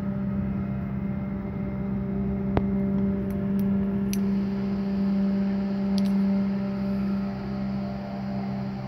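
A steady low mechanical hum, like a motor running, with a few faint clicks in the first half.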